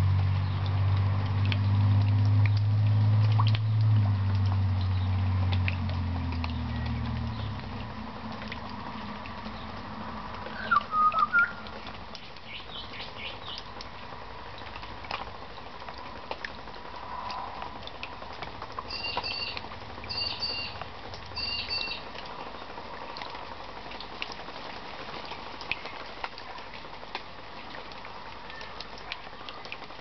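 Rain dripping and runoff trickling into a puddle, a steady patter of small drops. A low rumble, loudest at first, fades out about seven seconds in. A bird chirps briefly about eleven seconds in and gives three short calls around twenty seconds in.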